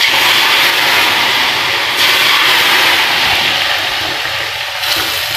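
Hot desi ghee poured as a tadka (tempering) into a pot of hot daleem, sizzling loudly and steadily. The sizzle eases off near the end.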